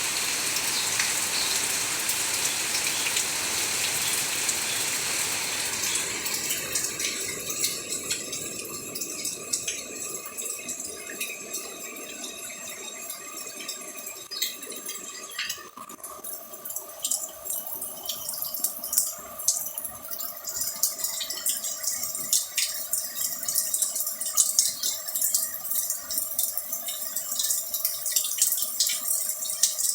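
Heavy rain falling in a dense hiss; about six seconds in it thins to irregular drips and splashes of rainwater, with a faint steady hum underneath.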